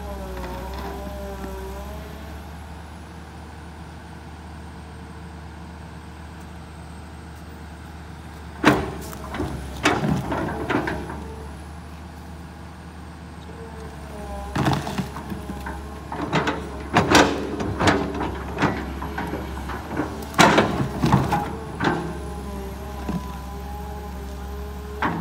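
Kobelco SK200 excavator's diesel engine running steadily, its hydraulics whining and shifting in pitch as the boom and bucket work. Repeated knocks and clunks come in bursts from the bucket digging into soil and tree roots, most often in the second half.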